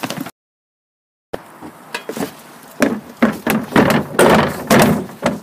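Red plastic bin being tipped and knocked to empty its load of fermented humanure and sawdust onto a compost heap: a run of loud thumps and scrapes from about three seconds in, after a second of dead silence near the start.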